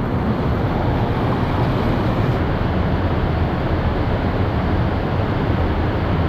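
Steady, unbroken rushing roar of river water pouring through the lock and dam, heaviest at the low end.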